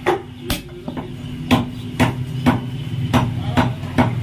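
Heavy meat cleaver chopping goat meat and bone on a wooden log chopping block: a run of sharp chops roughly two a second, with a short break about a second in.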